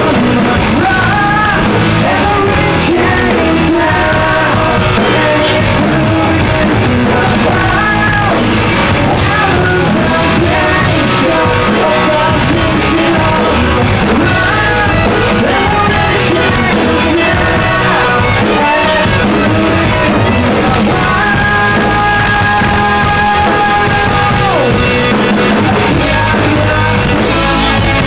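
Live rock band playing: a man singing over electric guitars, bass guitar and a drum kit. A long held note stands out about three quarters of the way through.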